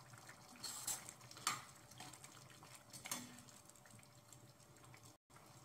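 Metal spoon pressing and stirring thick kidney bean curry in a pan: a few faint wet squelches and light scrapes against the pan, the beans being mashed to thicken the gravy.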